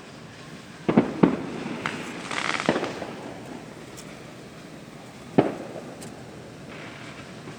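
Fireworks going off: four sharp bangs, the loudest about a second in and another about five and a half seconds in, with a short spell of crackling about two and a half seconds in.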